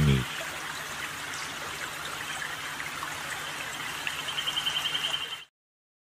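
Steady rushing noise of running water, like a stream, with a fast high-pitched trill about four seconds in. It cuts off abruptly shortly before the end.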